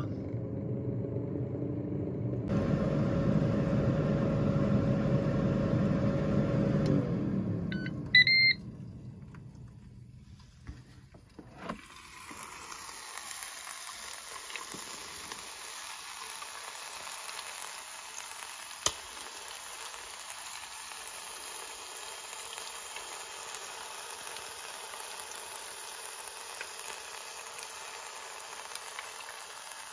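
Ninja Speedi air fryer's fan running with a steady hum, then spinning down about seven seconds in, with a short beep as it stops. After a click about twelve seconds in, short ribs sizzle steadily in the open cooking pot with a little braising water.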